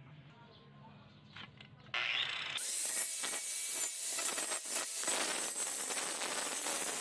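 Angle grinder with a cutting disc cutting into the steel rim of an old car wheel, starting about two seconds in and running loud and steady with a harsh, high-pitched hiss.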